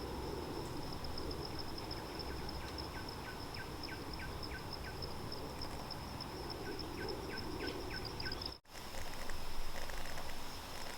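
A steady, fast-pulsing high insect trill, with a bird giving a rapid series of short falling whistled notes, twice. The sound cuts out abruptly near the end and the outdoor background comes back a little louder.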